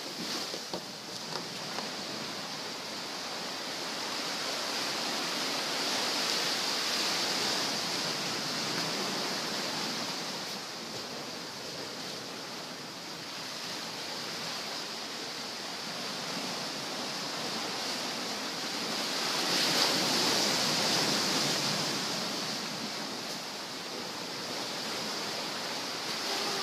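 Surf washing onto the beach: a steady rush of breaking waves that swells twice, about a quarter of the way through and again about three-quarters through. A single sharp knock at the very start.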